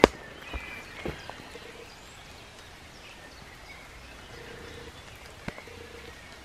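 Woodland ambience: small birds chirping faintly over a steady outdoor hush. A sharp click comes at the very start, with a few softer knocks and taps later.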